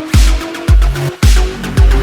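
Electronic dance music with a heavy bass beat about twice a second.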